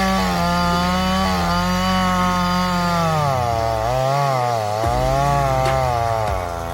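Chainsaw running at high revs while cutting wood, its pitch wavering and dropping under load a little past halfway before picking up again.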